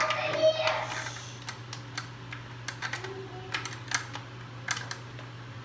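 Irregular light metal clicks and knocks of conga tensioning hooks being fitted onto the lugs and rim while a soaked rawhide skin is pulled down over the drum. A short pitched sound about half a second in is the loudest moment.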